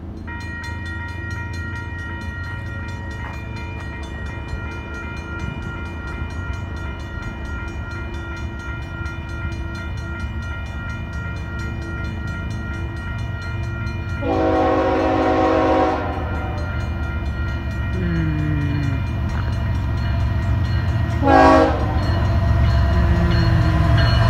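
Union Pacific diesel locomotive approaching, its low engine rumble growing steadily louder. It sounds its air horn with a long blast a little past halfway through and a short blast near the end.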